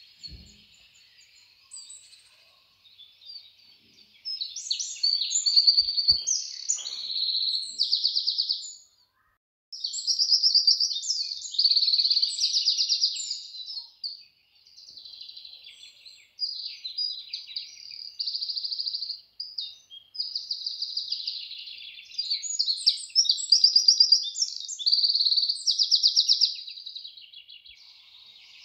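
Birds chirping and singing in repeated bursts of fast, high trills. A faint steady high hiss sits under them at the start.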